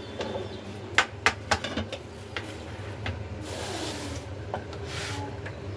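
A few sharp knocks of kitchen items being handled about a second in, then two short bursts of plastic-bag rustling.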